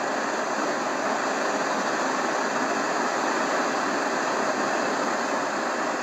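Hitachi TRK-8240RM boombox radio hissing with steady static between stations while its tuning knob is turned.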